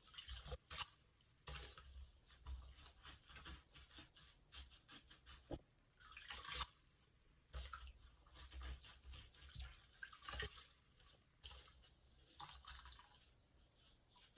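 A soapy sponge lathered with foaming hand soap, squeezed and pressed by hand in a sink of sudsy water. It makes faint wet squishing, crackling foam and dripping water, with louder squeezes about half a second, six seconds and ten seconds in.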